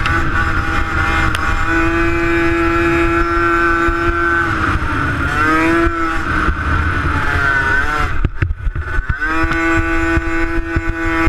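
50cc racing motorcycle engine at high revs, heard from the rider's helmet, held steady, dipping and climbing back a couple of times. About eight seconds in it cuts back and stutters for about a second, then climbs back to a steady high rev. A low rumble of wind runs underneath.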